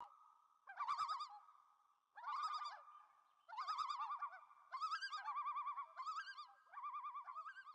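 Bird calling: a quavering, warbling call repeated about seven times over a steady held note.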